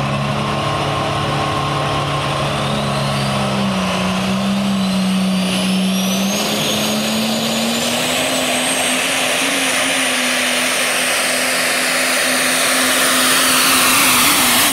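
Super stock diesel 4x4 pulling truck's engine running hard under load as it pulls the sled, with a high turbocharger whine rising steadily in pitch. It grows louder near the end.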